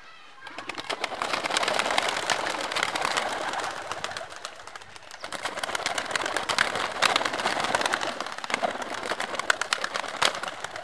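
A flock of domestic pigeons bursting out of a coop, a dense clatter of wing claps and flapping in two waves with a short lull between them. The birds are fleeing in fright from a snake inside the coop.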